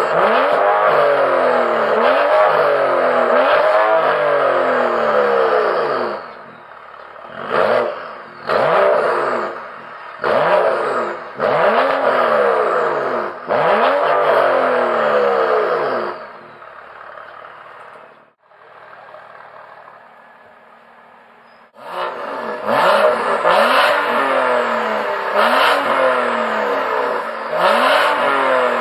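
A BMW ActiveHybrid 3's turbocharged straight-six is revved in place through a Mach5 valved stainless-steel exhaust with the valves open: a string of revs rising and falling, then a run of short blips. After a quieter idle stretch, more revs follow with the exhaust valves closed.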